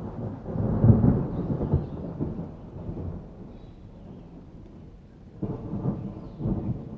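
Thunder rumbling over heavy rain, loudest about a second in and dying away, with a second, shorter rumble near the end.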